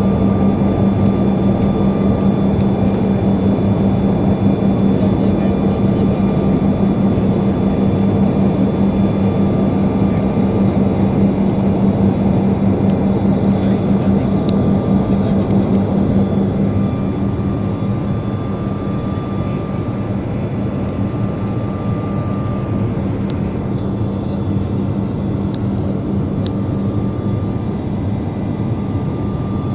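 Airliner cabin noise in flight: a steady drone of engines and rushing air with a strong low hum, easing slightly a little past halfway.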